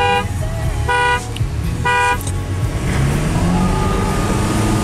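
A car horn honks three short times about a second apart, over the low rumble of a GMC Canyon diesel pickup heard from inside its cab. After the honks the engine note climbs slowly as the truck speeds up.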